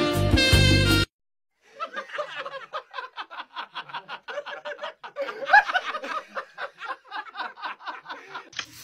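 Music that cuts off about a second in, then, after a brief pause, a long run of quick, breathy laughter at about five pulses a second.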